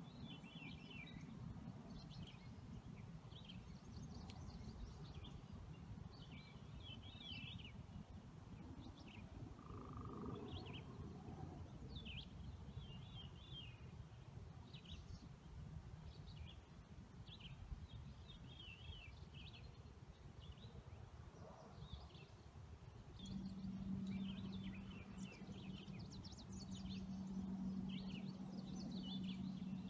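Faint bird chirps and short trills, one after another, over a low steady rumble. A steady low hum joins about three quarters of the way through.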